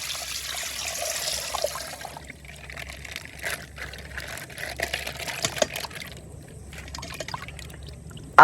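Water pouring and trickling out of a burst plastic bag, with scattered small crackles of the plastic; the flow tapers off after about six seconds.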